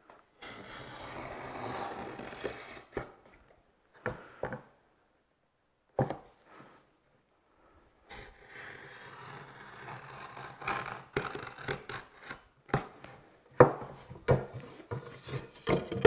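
Marking knife dragged along a steel square across the end grain of a pine board, scoring a knife line with dry scraping strokes, twice over, to deepen the score line. Near the end, a run of sharp clicks and wooden knocks.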